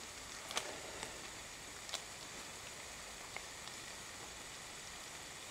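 Small pieces of steak sizzling faintly in a cast iron skillet over a wood-burning camp stove, a steady hiss broken by a few sharp clicks, the loudest about half a second in. The pan is not as hot as wanted, so the sear is weak.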